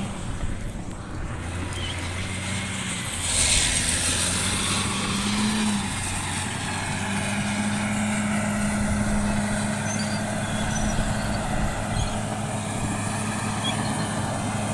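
Caterpillar D6R bulldozer's diesel engine running steadily under light load while dozing sugarcane trash, not at full power. A brief rushing hiss rises over it about three and a half seconds in.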